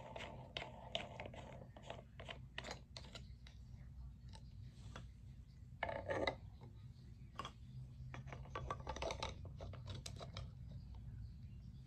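Wooden pieces of a Melissa & Doug Take-Along Tool Kit clicking and knocking together as toy nuts, bolts and bars are fitted and screwed on by hand, in short irregular taps. A louder clatter comes about six seconds in.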